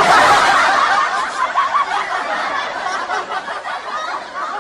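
Canned audience laughter: a laugh track of many people laughing and snickering together, starting suddenly on the punchline and slowly fading away.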